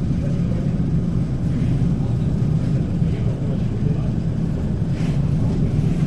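ER2K electric multiple unit running on departure, a steady low rumble.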